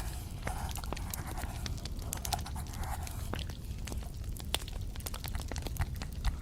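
Close-miked ASMR trigger sounds: a dense run of small, irregular clicks and crackles with soft rustling in between.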